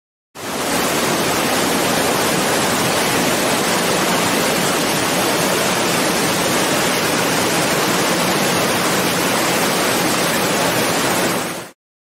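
Steady, even rush of a waterfall, starting abruptly and cutting off abruptly near the end.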